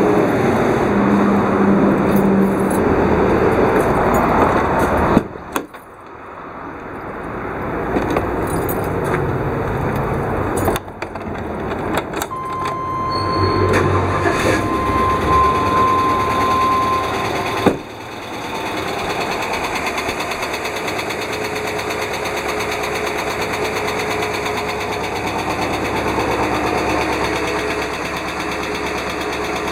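An American school bus's engine running, with a steady fast ticking tap that the owner suspects is a failing hydraulic lash adjuster (lifter) at over 140,000 km. The sound breaks off abruptly a few times, and a steady high tone sounds for a few seconds in the middle.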